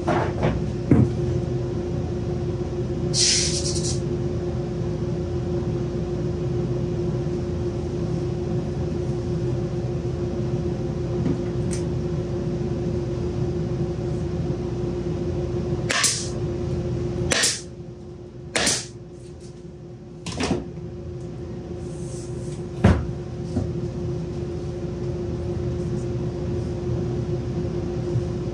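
Plywood panels knocking against each other and being set down on a wooden cabinet, several sharp knocks in the second half. Under them runs a steady machine hum with a low tone that stops for about three seconds among the knocks.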